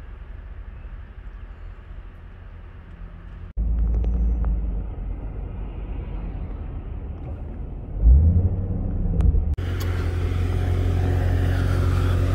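Car engine and road rumble heard from inside a moving car, with the engine revving up loudly about eight seconds in. Then, outdoors, a car engine idling with a steady low hum.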